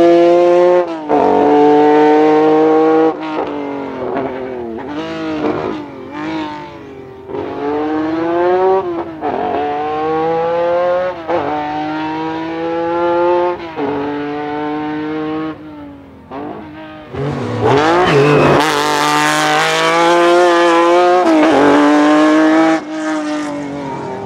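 Lancia Stratos Gr.4 rally car's Ferrari Dino 246 V6 accelerating hard, the pitch climbing in each gear and dropping back at every upshift. It fades with distance in the middle, grows loud again with more sharp rises in revs in the second half, and falls away near the end.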